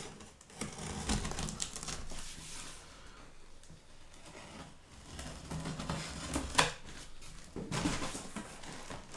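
Cardboard delivery boxes being handled and opened: rustling and scuffing with scattered light knocks, and one sharper knock about two thirds of the way through.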